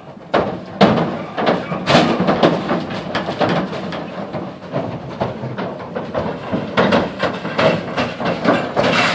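Cattle clattering and banging inside a livestock stock trailer: a continuous run of irregular hoof and body knocks on the trailer floor and metal sides as the heifers load.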